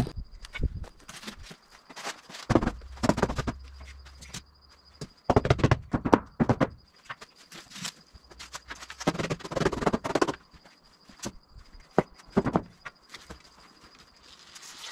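Irregular knocks, thuds and scuffs from handling polystyrene insulation boards and pressing them onto a brick wall, with footsteps.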